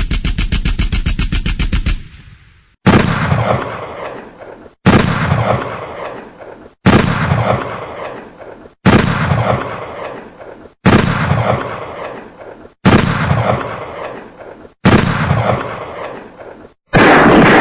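Gunshot sound effects: a short burst of rapid automatic fire, then heavy single shots about every two seconds, eight in all, each with a long rumbling decay. Near the end a loud continuous rushing noise begins.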